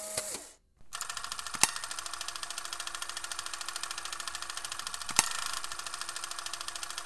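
A fast, even mechanical ticking over a faint steady tone, with two sharp clicks, one about a second and a half in and another about five seconds in.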